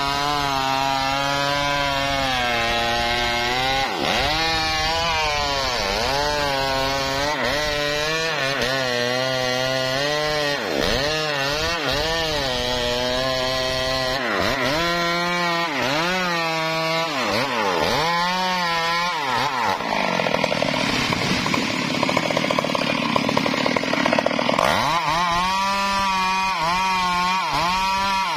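Stihl MS381 two-stroke chainsaw cutting through a tree trunk, its engine pitch dipping and recovering about once a second as the chain bites into the wood. From about 20 to 25 seconds in the sound turns noisier and harsher under load, then the engine settles back to a steady high whine.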